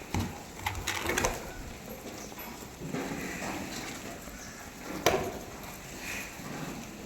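Goats moving about in their pen: a few sharp knocks and clatters, the loudest about five seconds in.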